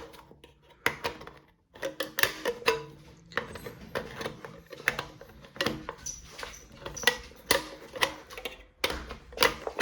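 Leatherman Surge multitool's lever-type can opener biting its way around the rim of a metal can, each stroke a sharp metallic click or snap, about two a second.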